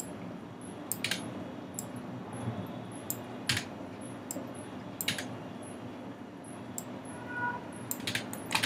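Computer mouse clicking: single sharp clicks a second or two apart, with a quicker run of clicks near the end, over a steady low hum from the microphone.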